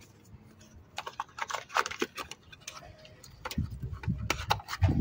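Quick, irregular clicks and rattles of small metal tools and parts being handled, with low rubbing and handling noise from about halfway through.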